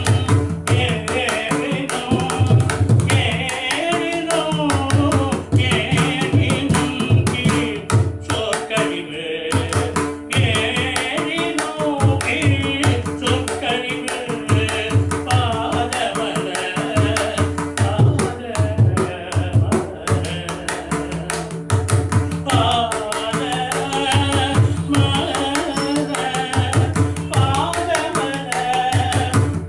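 Male voice singing a Tamil devotional hymn in Carnatic style, accompanied by a mridangam playing clusters of deep resonant strokes, over a steady drone.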